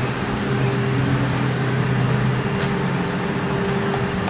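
Steady hum of a power tool's electric motor, its tone shifting slightly about halfway through.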